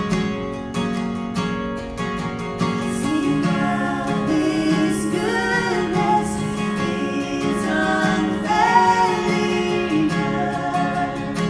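Worship song with a strummed acoustic guitar. Partway in, a voice comes in singing long held, wavering notes with no clear words.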